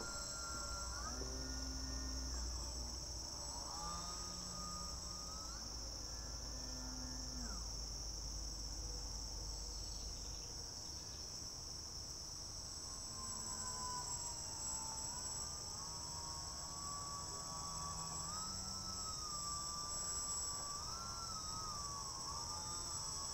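A steady, high-pitched insect chorus, with a fainter whine under it that holds a pitch, then steps or slides to another every few seconds.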